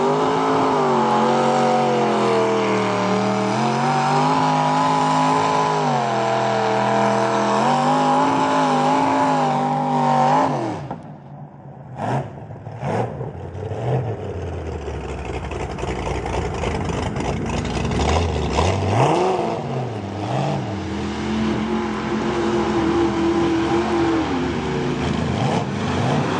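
Mud truck's engine revving hard, its pitch rising and falling as the truck pushes through the mud pit. About ten seconds in the sound breaks off abruptly, then the engine is heard again at lower, uneven revs with a deep rumble.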